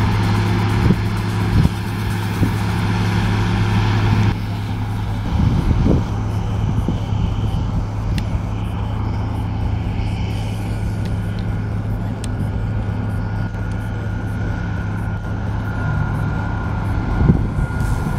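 New Holland combine harvester running steadily as it harvests, with a strong low hum. About four seconds in, the sound cuts to a tractor hauling a grain trailer, its engine running steadily.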